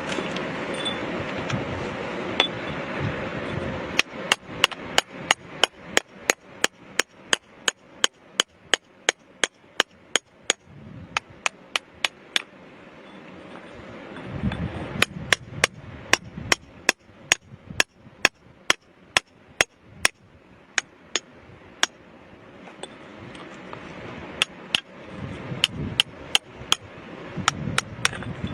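A hammer striking rock in quick, sharp blows, about three a second, in three runs with short pauses between them.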